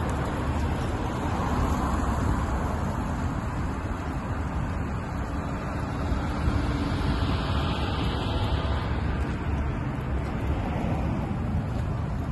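Steady road traffic on a busy multi-lane city street, with cars driving past.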